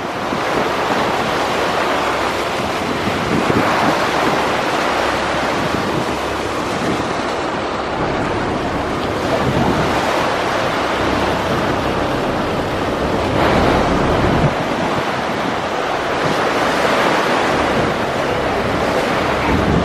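Wind gusting on the microphone over the steady rush of river water churned up by the ferry moving through it.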